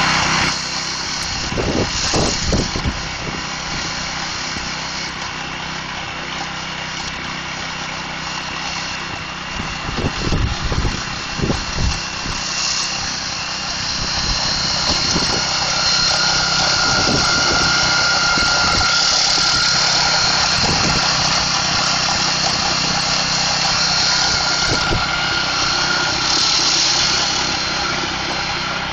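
Small gasoline engine of a concrete grinder running steadily, with a few low knocks in the first half. About halfway through a loud grinding hiss rises over the engine as the machine cuts down the lifted edge of a concrete sidewalk slab.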